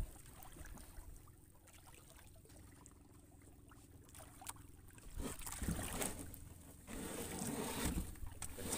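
Water lapping and sloshing against the hull of a small wooden fishing boat, over a faint steady low hum. It is quiet at first and grows louder and more splashy from about five seconds in.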